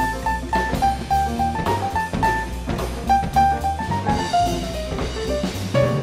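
Jazz quartet recording: a quick single-note lead line over bass and a drum kit with cymbals.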